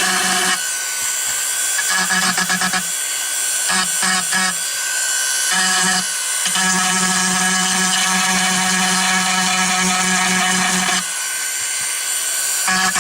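Dremel rotary tool with a pointed grinding stone grinding into the plastic shell of a Nerf blaster, cutting blast marks. Its steady whine drops out and comes back several times over a constant high grinding hiss.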